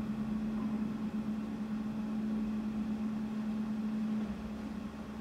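Electric hoist motors of the movable pendant lamps running as the lamps are raised: a steady, even hum that drops in level about four seconds in and carries on more faintly.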